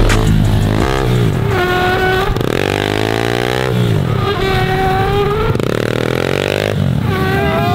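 Small pit bike engines revving as a pack of bikes rides along. The engine note climbs in pitch about three times, as if accelerating up through the gears, with the sound of other bikes mixed in.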